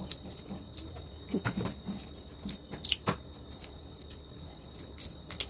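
Raw shrimp being peeled by hand: irregular small clicks and crackles as the shells are pulled off, some sharper snaps among them.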